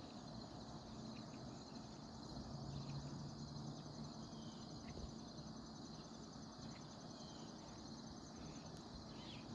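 Faint, steady chorus of crickets trilling in a high, fine pulse, with a few short bird chirps here and there.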